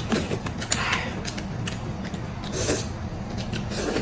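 Close-up eating sounds of a person chewing sour-and-spicy boneless chicken feet: a run of small wet clicks, crackles and creaky crunches, with a couple of louder crunchy bursts.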